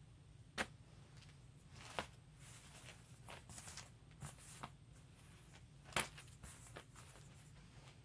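Faint rustling as crocheted lace doilies are handled and laid out on a table, with a few light, sharp taps scattered through it.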